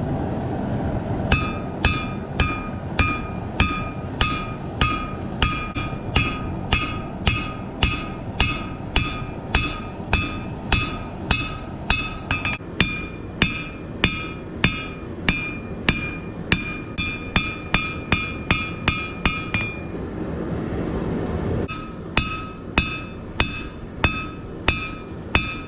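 Hand hammer striking hot rebar on an anvil at a steady pace of about two and a half blows a second, each blow leaving a short metallic ring, as the edge bevel of a blade is forged. The hammering stops for about two seconds near the end, then resumes. A steady low rush runs underneath.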